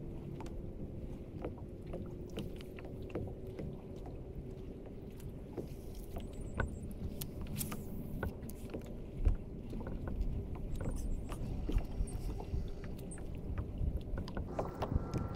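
Water lapping against a fishing kayak's hull, with scattered small knocks and clicks and one louder thump about nine seconds in.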